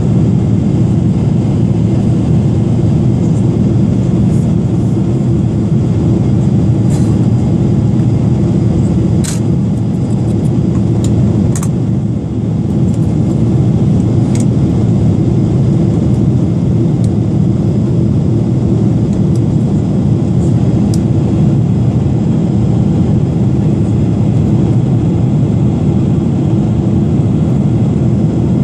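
Steady jet cabin noise inside a Boeing 777-300ER in flight, heard beside the wing: the even low rush of its GE90-115B turbofan and the airflow over the fuselage. A few faint light clicks come in the first half.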